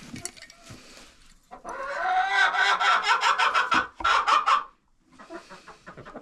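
A hen calling loudly in a fast run of repeated squawking cackles for a few seconds, then breaking off into quieter clucks near the end.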